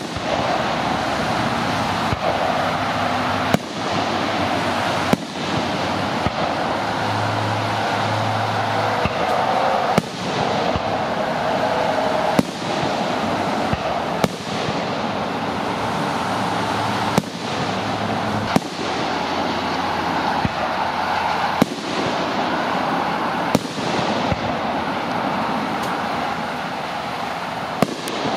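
Aerial fireworks shells bursting in the sky, a sharp bang every couple of seconds over a steady background hiss.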